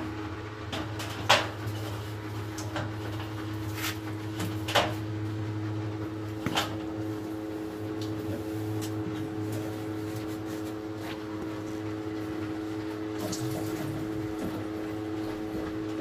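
Small electric submersible pump humming steadily as it circulates descaling solution through a tankless water heater, with scattered clicks and knocks, loudest in the first few seconds.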